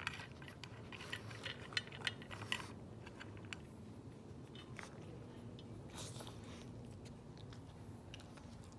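A Pekingese crunching dry kibble from a stainless steel bowl. The crunches come thick for the first three seconds, then thin out to scattered chews, with a short flurry about six seconds in.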